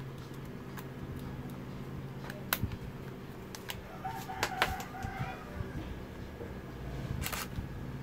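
Nikon D3100 DSLR shutter and mirror firing with a sharp click-clack about seven seconds in: the shutter now works after the repair of the 'Press shutter release button again' error. Lighter clicks of button presses and handling come earlier, and a faint drawn-out call sounds in the background around the middle.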